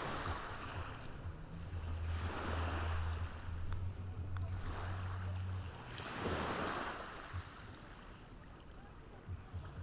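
Small waves breaking and washing up on a beach, one swell of surf about every two seconds. A low steady hum sits underneath for a few seconds in the first half.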